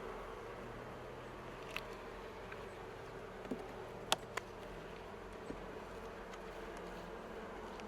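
Honeybees buzzing steadily in an open hive during a frame inspection, with a few short sharp clicks, the loudest about four seconds in.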